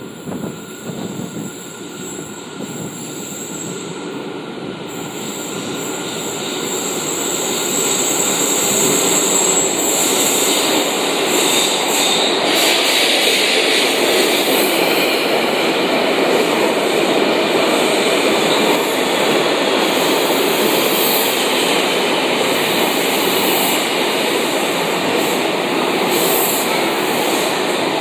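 Eight-car CityRail S set double-deck electric suburban train pulling in to an underground station platform. It grows louder over the first eight seconds or so as it comes out of the tunnel, then gives a steady, loud running noise of wheels on rail as the carriages pass.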